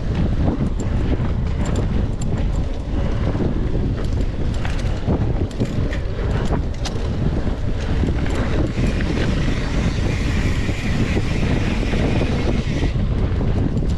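Wind buffeting the microphone of a mountain bike rider on a trail, with a steady low rumble and many small clicks and rattles from the bike over rough ground. A steadier higher hiss joins from about nine to thirteen seconds in.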